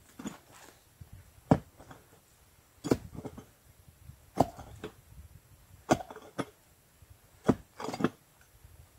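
Pickaxe striking hard, frozen ground at a steady pace, about one blow every second and a half, five blows in all, each followed by a smaller knock of dirt and clods.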